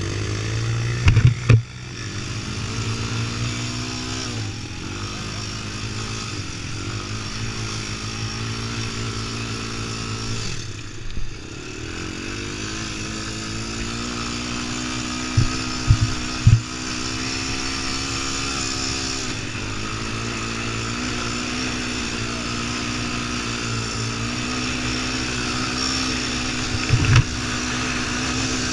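Sport ATV engine running under way on sand, its pitch rising and falling with the throttle. There are sharp knocks about a second in, twice around the middle, and once near the end.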